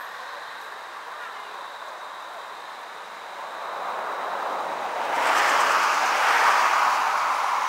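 A vehicle passing on the road: its tyre and engine noise grows from about three seconds in and is loudest near the end, over a steady background hiss of traffic.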